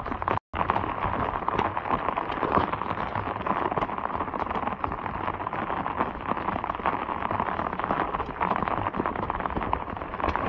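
Heavy rain falling steadily in a downpour, a dense even noise dotted with fine drop clicks, with a brief dropout about half a second in.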